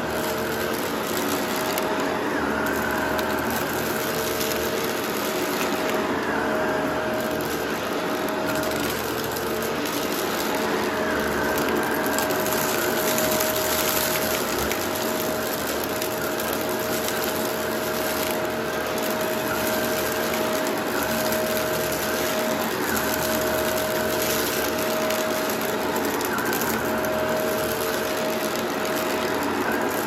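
Vacuum cleaner running steadily with its brushroll turning on a rug: a held motor tone over a constant airy hiss, the tone dropping out briefly a few times.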